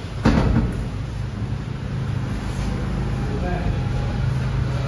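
Motorcycle running on the road: a steady low engine and wind rumble, with a short burst of a voice about a quarter second in.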